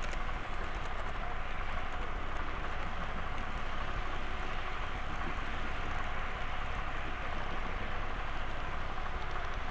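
Steady whirring rattle of a model train running along the track: wheels on rail and the locomotive's motor heard up close from a camera riding on the train.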